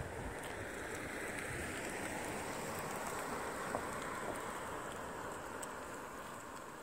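A compact SUV driving past across an asphalt parking lot: a steady tyre-and-engine rush that swells over the first few seconds, then fades as the car pulls away.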